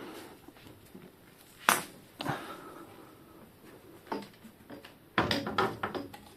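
Bicycle headset parts and fork being handled and fitted back together. There is a sharp metallic click near two seconds in, followed by a short ringing ping, and then a quick run of clattering knocks near the end.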